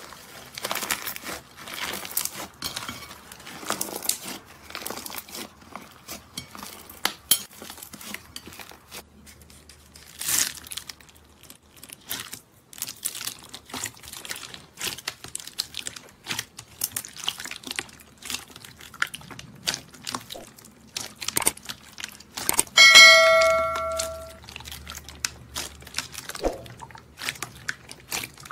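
Slime being squeezed and kneaded by hand, giving dense crackling and popping clicks: first a green slime with a cracked, hardened pink crust, later a red jelly slime packed with small beads. About two-thirds through, a bell-like ding rings for over a second.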